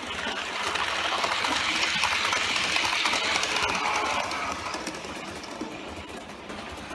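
A model electric train, a double-deck multiple unit, running past on the layout's track: the wheels clatter and the motor whirs, growing louder as it approaches, loudest as it passes close by, then fading.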